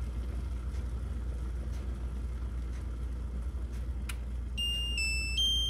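Hartmann gooseneck electric drip kettle with water boiling, a steady low rumble. About four and a half seconds in, its base plays a three-note electronic chime (middle, lower, then higher), the alert that the water has reached 100 °C and the kettle is going into keep-warm.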